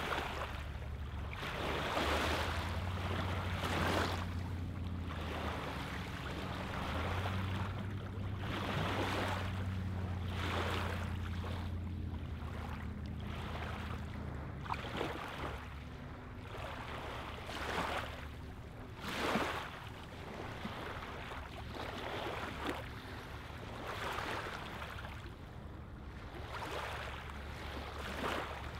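Small lake waves lapping on a pebbly sand shoreline: soft, irregular washes and splashes every second or two. A low steady hum runs underneath for roughly the first dozen seconds, then fades out.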